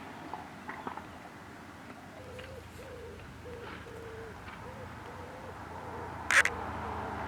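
A pigeon cooing, a run of about nine low, soft notes in an even rhythm over a low steady background. A single sharp knock comes near the end.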